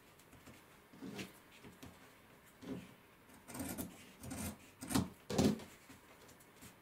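Denim fabric rubbing and rustling as it is handled, in about six irregular strokes that are loudest a little before the end.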